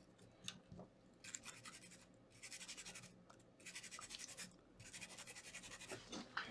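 A cotton swab wet with alcohol scrubbing flux residue off a laptop motherboard, in quick back-and-forth strokes. It comes in four short spells and is faint.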